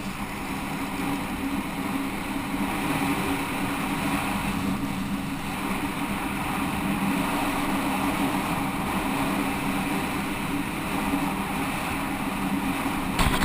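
Motorcycle engine running steadily while riding, with wind noise over it. A few sharp clicks come near the end.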